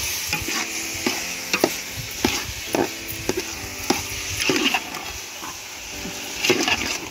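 Metal ladle stirring grated carrots frying in oil and sugar in a metal pot, making repeated scrapes against the pot about twice a second over a steady sizzle. The scraping pauses briefly past the middle, then starts again.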